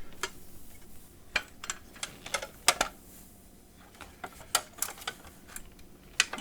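Scattered light clicks and knocks at irregular spacing as payphone parts are handled during disassembly.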